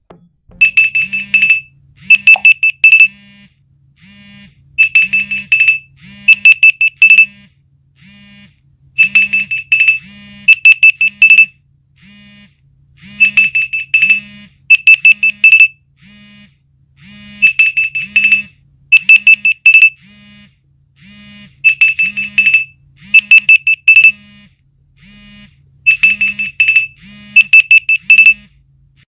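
Meizu Mblu 21 smartphone alarm going off: clusters of rapid, high beeps come in pairs about every four seconds. Underneath, the phone's vibration motor buzzes in short, regular pulses.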